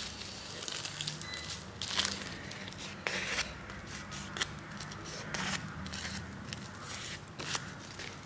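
Dry sheet of nori seaweed crackling as it is handled and folded, with irregular sharp crinkles.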